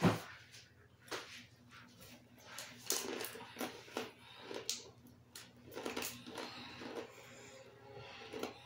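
Crisp crunching and clicking of crispy chicken-skin chicharon being eaten and handled at the table, in irregular strokes, the loudest right at the start.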